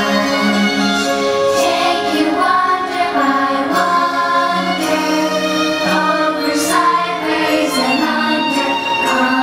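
Fireworks show soundtrack: music with singing voices holding long notes.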